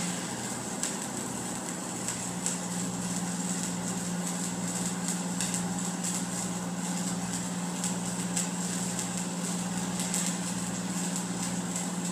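Stick welding arc crackling steadily as an overhead bead is run with 1/8-inch 7018 rods at about 120 amps, over the steady hum of the welding machine running.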